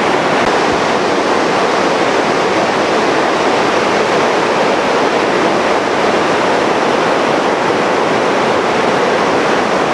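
River water pouring over a weir: a loud, steady rush of white water.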